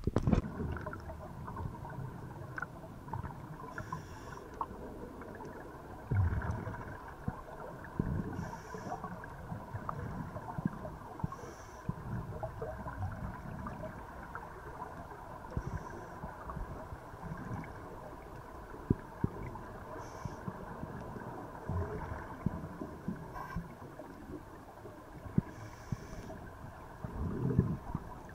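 Muffled underwater sound of a camera in its housing: a low rumble with frequent small knocks, and a short hiss of scuba divers' exhaled regulator bubbles about every four seconds.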